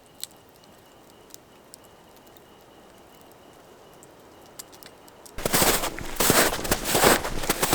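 Quiet night air with a few faint clicks, then, about five seconds in, loud irregular crunching starts, about two steps a second: footsteps in snow.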